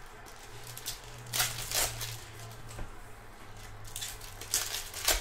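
Plastic wrappers of Panini Mosaic basketball card packs crinkling and tearing as a pack is ripped open by hand. The crackle comes in two bursts, about a second and a half in and again near the end, over a low steady hum.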